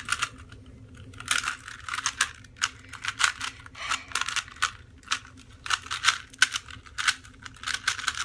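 Plastic Rubik's cube being turned quickly by hand, its layers clicking and clacking in quick irregular runs.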